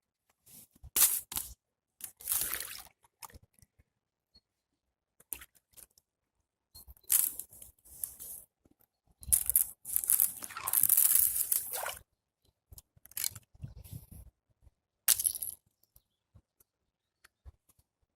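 Ice crunching and crackling in irregular bursts with silent gaps between them, the longest burst lasting a couple of seconds about two-thirds of the way through.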